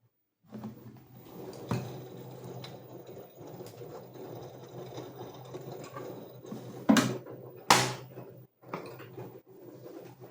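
LG front-loading washing machine running a wash cycle: a steady motor hum with a rushing noise from the turning drum. There is a sharp knock near two seconds in and two loud knocks close together around seven seconds in.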